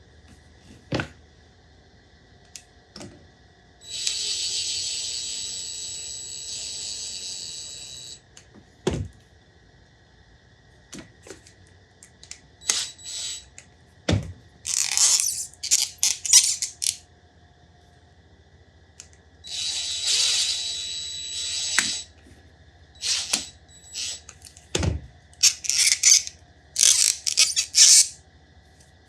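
Tools and small parts handled on a workbench: scattered clicks, knocks and clatter. Two steady hisses of a few seconds each, one about four seconds in and one near twenty seconds, each with a thin whistle riding on it.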